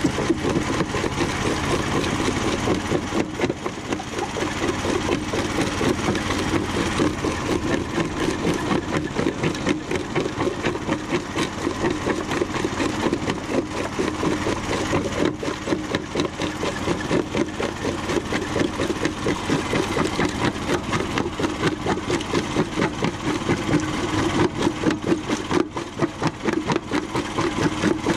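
Homemade jaw crusher running, its engine-driven jaw working with a fast, even pulsing while it crunches chunks of concrete down into gravel.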